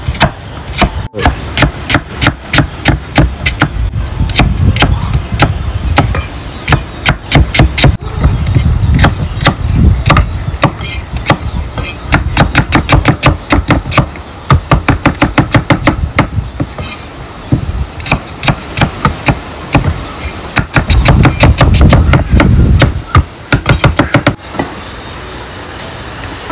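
Rapid, repeated chopping: a knife or cleaver striking a cutting board about four to five times a second, in runs broken by short pauses.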